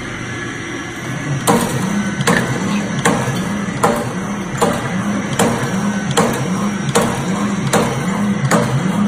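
Wire straightening and cutting machine running: a steady motor drone with a wavering hum, and from about a second and a half in a sharp clack roughly every three-quarters of a second as the cutter chops the straightened wire into 130 mm lengths.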